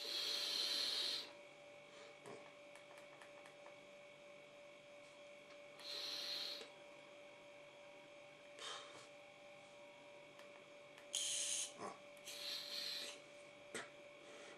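Breathy hisses of a person drawing on an e-cigarette and blowing out the vapour, four short puffs of about a second each, over a steady electrical hum.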